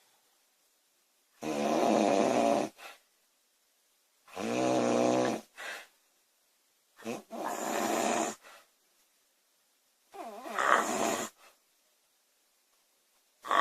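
A woman snoring loudly in a steady rhythm: four snores about three seconds apart, each lasting a little over a second, with a fifth beginning at the very end.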